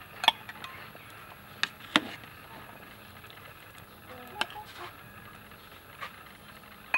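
A metal ladle knocking against a pot and bowl as soup is served: a handful of sharp, separate clinks spread over several seconds, over the faint steady bubbling of the boiling soup.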